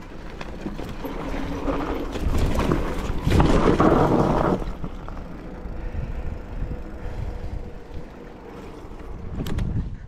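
Wind buffeting the microphone over a mountain bike rattling along a rough trail, with many short knocks, loudest about three to four and a half seconds in.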